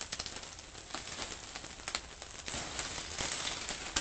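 Eggs and meat sizzling on a hot propane griddle top, a steady crackle with many small pops and spits of fat.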